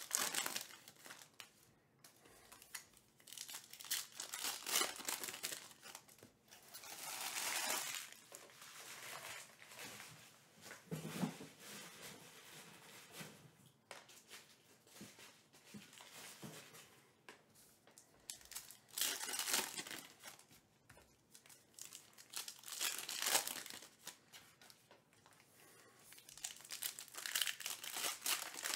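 Foil trading-card pack wrappers being torn open and crinkled in the hands, in irregular bursts with quieter gaps between.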